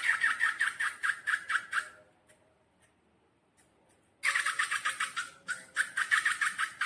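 Rapid squeaky squishing strokes from slime and rubber balloons being handled, about seven a second. They stop for about two seconds in the middle, then start again.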